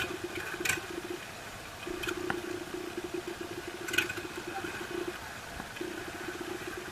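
Longtail boat engine running with a low, steady, rhythmic hum that drops out briefly twice, with a few sharp knocks over it.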